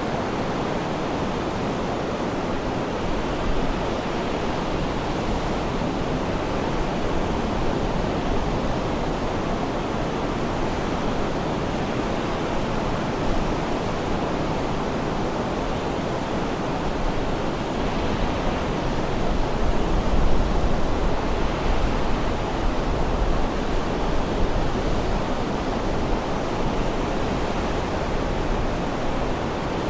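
Sea surf washing steadily, a continuous rushing noise that swells for a few seconds past the middle.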